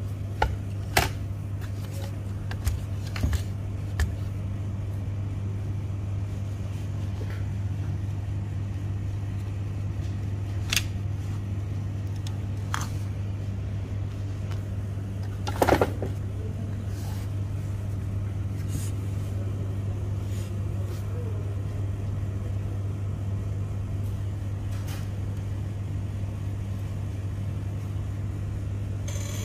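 A steady low hum under scattered light clicks and knocks of plastic and metal parts of a printer fuser unit being handled. The loudest knock comes about halfway through.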